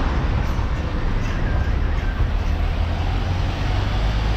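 Truck driving on a highway: a steady low engine drone under road and wind noise.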